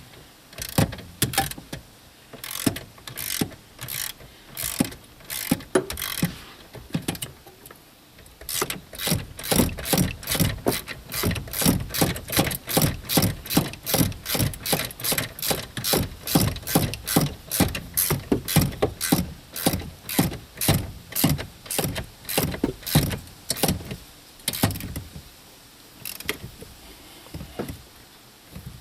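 Hand ratchet clicking as it runs a lock nut down onto the steering column's through bolt: scattered clicks at first, then a steady run of about two to three clicks a second, tapering off near the end as the nut comes up snug.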